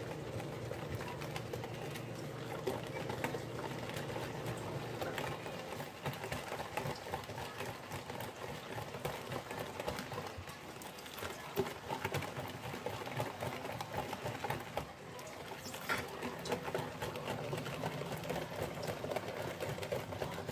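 Hand whisk beating pudding filling mix into milk in a bowl: a rapid, steady clatter of the whisk against the bowl.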